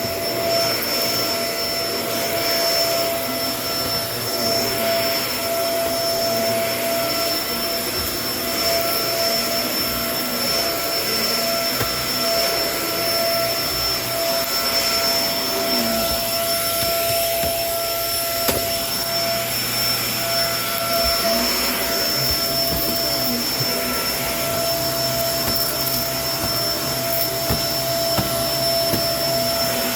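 Kenmore vacuum cleaner running steadily: a rushing stream of air with a steady motor whine, broken by a few faint clicks.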